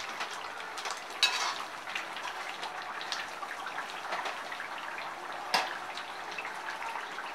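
Chicken korma gravy sizzling in a metal kadai while a slotted spoon stirs it, with light scraping and two sharper clinks of the spoon on the pan, about a second in and past the middle.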